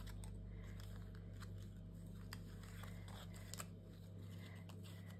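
Faint rustle and a few light ticks of paper die-cut stickers being sorted through by hand, over a steady low hum.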